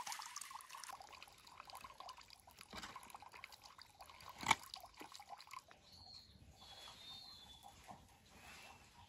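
Water splashing and dripping as small fish are rinsed and sorted by hand in a basin of muddy water, with a sharp knock about halfway through.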